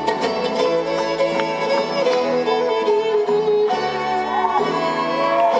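Live bluegrass string band playing an instrumental break: bowed fiddle over strummed banjo, acoustic guitars and upright bass.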